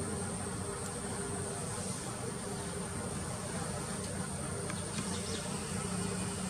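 Steady high-pitched insect drone, over a low background hum.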